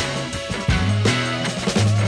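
Background rock music with a steady drum beat, bass and guitar.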